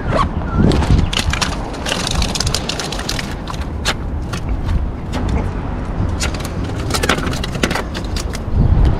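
Close handling noise: a run of clicks, rustles and scrapes as a soft tackle bag is handled, then hands and bare feet scuffing over rock-wall boulders, over a steady low wind rumble on the microphone.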